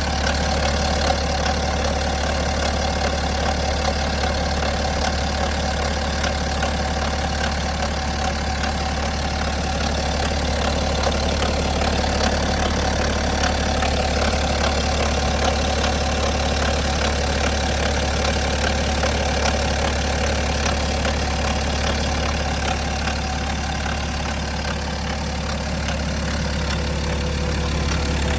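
BMW N57 3.0-litre straight-six diesel engine idling steadily. Its running noise is the one the owner asks about as possible timing chain noise.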